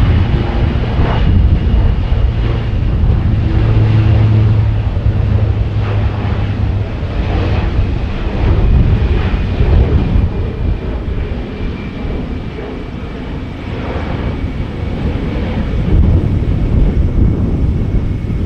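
Military aircraft engines running loud, with a low hum, a steady high whine and wind buffeting the microphone.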